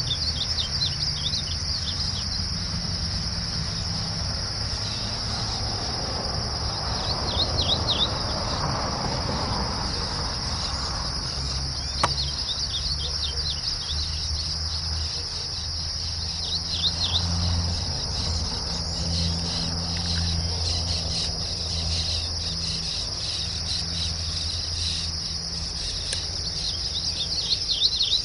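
Glaucous-blue grosbeak singing short, quick warbling phrases, repeated several times a few seconds apart, over a steady high-pitched drone of insects.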